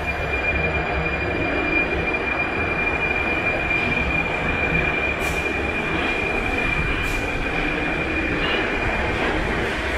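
Prague Metro 81-71M metro train pulling out of an underground station and gathering speed past the platform: a steady rumble with a steady high-pitched whine that fades near the end, and two short hisses about five and seven seconds in.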